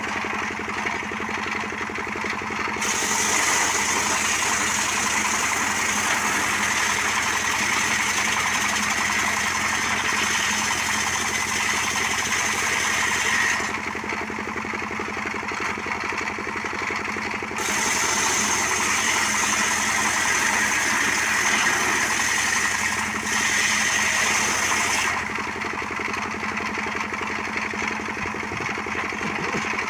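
Motorcycle engine powering a homemade wood-cutting saw, running steadily. About three seconds in it turns louder with a higher whine for roughly ten seconds, drops back, then rises to the louder whine again for about seven seconds before dropping back near the end.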